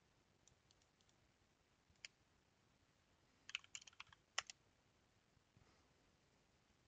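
Faint keystrokes on a computer keyboard: a single click about two seconds in, then a quick run of key presses a second or so later.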